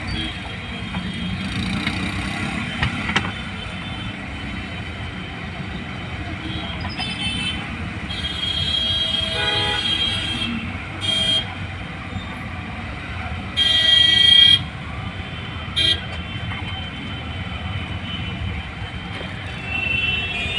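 Steady road-traffic rumble with vehicle horns tooting several times; the loudest honk lasts about a second, a little past the middle.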